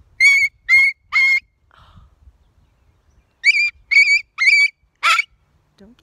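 Umbrella cockatoo calling: a run of three short, piercing, high calls, a pause, then three more about three and a half seconds in, ending on one harsher, raspier call.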